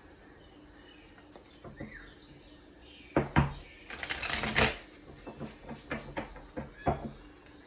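Tarot cards being shuffled and handled: a couple of sharp clicks about three seconds in, a brief dense shuffle of the deck about four seconds in, then a run of light irregular card taps and clicks.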